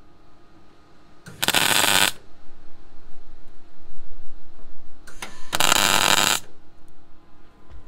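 MIG welder striking two short tack welds on the new steel floor panel, each a crackling sizzle lasting under a second, about four seconds apart.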